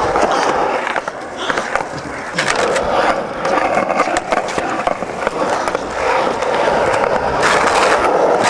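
Skateboard wheels rolling on a concrete skatepark surface, a steady grinding roll. Sharp clacks of the board popping and landing come about two to three seconds in and again near the end.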